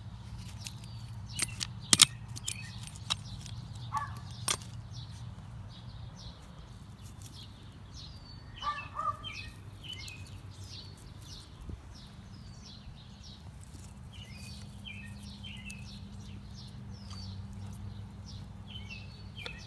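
Hand trowel digging in soil, with a handful of sharp scrapes and knocks in the first few seconds. Birds chirp over and over in short falling notes, over a low steady hum.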